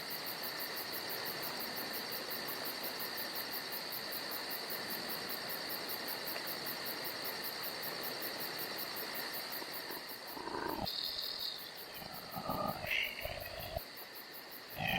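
Steady chirring of crickets, a continuous insect drone, with a few short voice-like sounds near the end.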